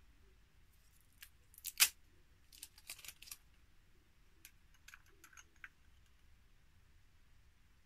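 Sharp clicks and short crackles of a small plastic cosmetics pot and its wrapping being picked at and opened by hand. The loudest click comes about two seconds in, then a quick cluster, then scattered lighter ticks.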